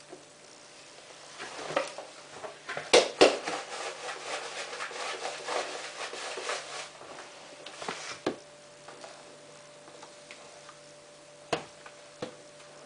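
Hands working a plastic detergent bottle and the washing machine's dispenser drawer: rubbing and rattling of plastic, with two sharp knocks about three seconds in, then a few scattered clicks.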